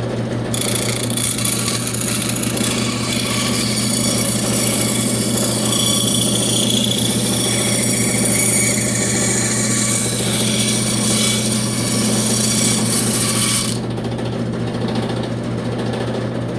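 Woodworking power machine cutting thin plywood: a steady low motor hum under a loud, rough cutting noise. The cutting noise eases off about three seconds before the end while the hum carries on.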